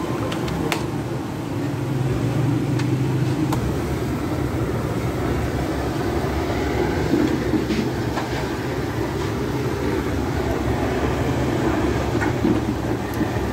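Steady low rumble of the fire burning in a clay tandoor oven, with a few light clicks.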